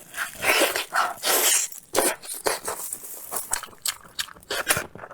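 A person chewing and biting into tender stewed meat, with a run of wet mouth smacks and short clicks, loudest in the first two seconds.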